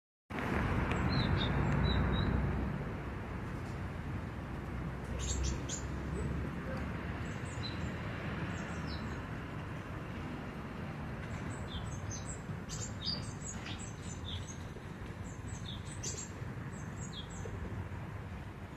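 Small birds chirping: many short, high, quick chirps, more frequent in the second half, over a steady low outdoor rumble that is loudest in the first couple of seconds.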